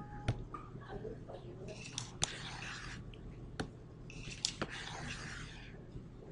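Quiet room tone with a low steady hum, a few faint sharp clicks of a computer mouse, and two short spells of soft rustling.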